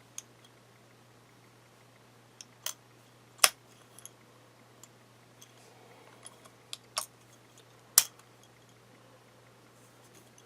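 Sharp clicks and knocks from a Noke Bluetooth smart padlock being handled, scattered and uneven, with two much louder clacks about three and a half and eight seconds in.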